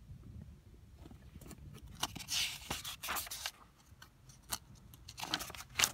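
Paper pages of an old desk diary being flicked through: dry rustling and flapping of sheets in quick strokes, a run starting about a second and a half in and another near the end.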